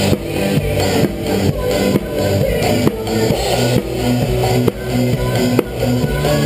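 Live band playing a pop-rock medley: a drum kit keeps a steady beat of about two strokes a second over sustained bass notes.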